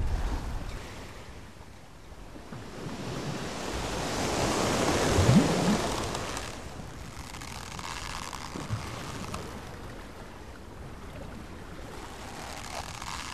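Sea waves washing with wind, an ambient sound bed, swelling to a surge about five seconds in and then settling to a steady wash.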